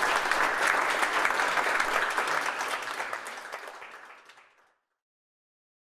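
Audience applauding, a dense patter of many hands that fades away over a couple of seconds and cuts to silence about four and a half seconds in.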